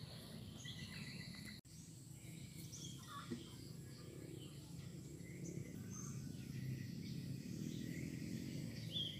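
Faint rural outdoor ambience: insects and a few scattered bird chirps.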